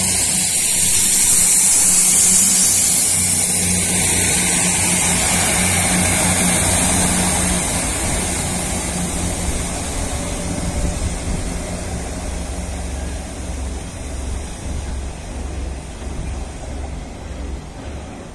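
Northern Class 158 diesel multiple unit's underfloor diesel engines running with a steady low hum and rail hiss as the train moves away along the track, fading steadily into the distance.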